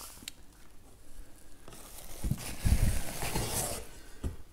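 Bubble wrap and cardboard rustling and crinkling as packed parts are rummaged for and lifted out of a box, starting about a second and a half in, with a few dull knocks.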